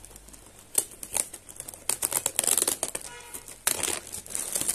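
Plastic courier mailer bag crinkling and crackling as it is picked open with a pen-like tool, in uneven spells, thickest about two seconds in and again near the end.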